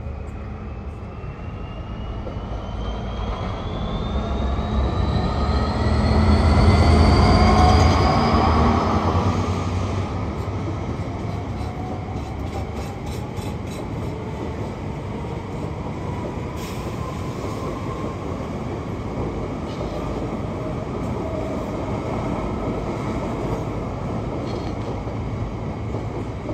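A Freightliner Class 66 diesel locomotive's two-stroke V12 engine running as it approaches and passes, with a whine rising in pitch, loudest about seven or eight seconds in. Then a long rake of cement tank wagons rolls past with a steady rumble of wheels on rail and occasional clicks.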